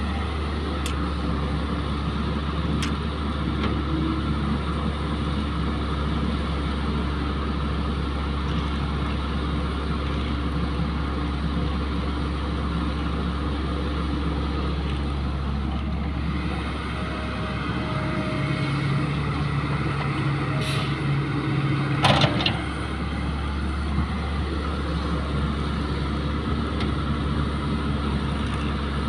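Caterpillar tracked excavator's diesel engine running steadily as it digs soil. The engine works harder for a few seconds about two-thirds through, followed by a brief sharp noise.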